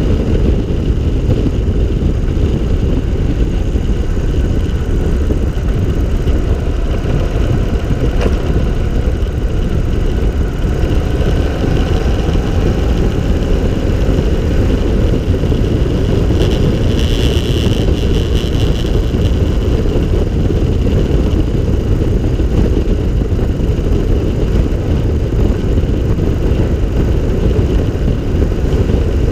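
Open three-wheeler's engine running steadily at road speed, under a dense low rumble of wind on the onboard microphone.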